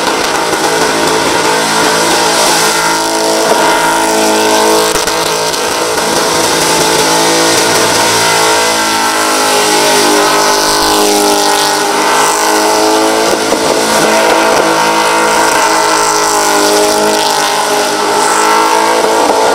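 Holden VX SS Commodore's V8 held near the limiter in a burnout, the rear tyres spinning and smoking on the bitumen. The engine note wavers up and down as the car circles, over a constant hiss from the tyres.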